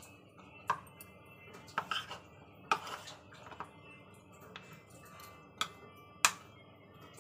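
Spoon knocking and scraping against a plate while stirring raw cut potato sticks coated with arrowroot, with short clinks at irregular intervals.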